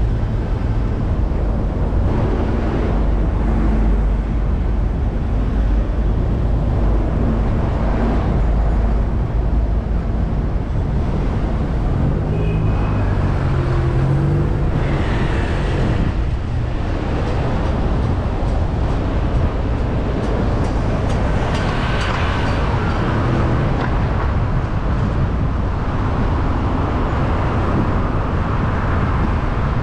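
Road and traffic noise from a car driving on a busy city road: a steady low rumble of engine and tyres, with surrounding traffic passing by.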